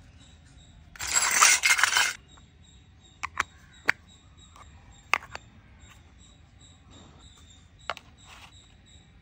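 Small plastic toy kitchen pieces being handled: a loud burst of handling noise lasting about a second near the start, then a few sharp plastic clicks and taps as the lids of a miniature plastic lunch box are taken off and fitted back on.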